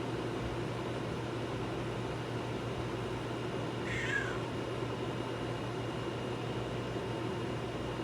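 Vernco K-3 box fan's General Electric motor coasting down after being switched off, a steady whir with a low hum; this fan has a very, very long spin down. About four seconds in a cat meows once, briefly, falling in pitch.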